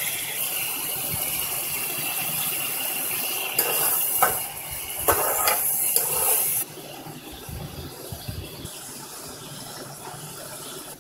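Minced meat sizzling in hot oil in a pan as ginger-garlic paste is poured in. A metal spoon scrapes and knocks against the pan several times, and the sizzle drops abruptly to a quieter hiss about two-thirds of the way through.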